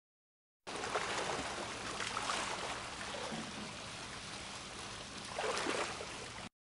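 Swimming pool water splashing and lapping as a person moves through it to the pool edge, with louder splashes about a second and a half in and again near the end.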